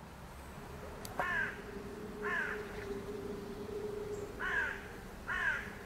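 A crow cawing four times, each caw short and falling in pitch, over a faint steady low tone.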